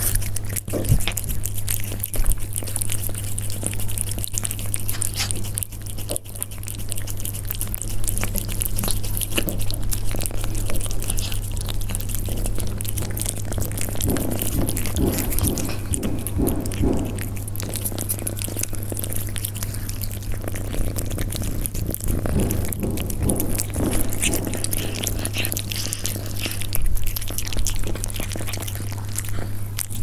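Persian cats eating, with irregular crunching and chewing clicks of food being bitten, over a steady low hum.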